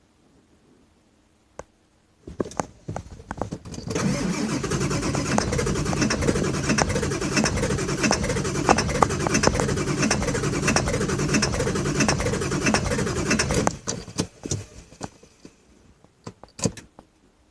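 2000 Ford F550's 7.3 V8 turbo-diesel being cranked by its starter: a few short bursts, then about ten seconds of steady rhythmic cranking that stops suddenly without the engine settling into an idle. It is a hard start, which the owner puts down to worn injectors.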